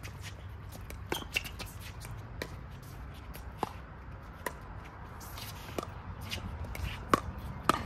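Pickleball paddles striking a plastic pickleball in a doubles rally: a string of sharp pops, about one a second, the loudest two near the end.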